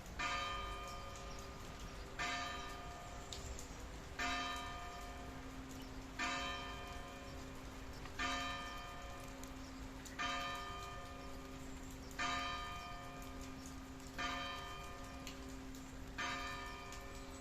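A bell tolling slowly and evenly, nine strikes about two seconds apart, each ringing on into the next, over steady rain.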